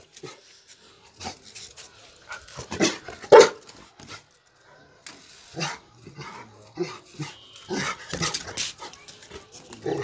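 Rottweiler barking: a series of short separate barks, the two loudest close together about three seconds in.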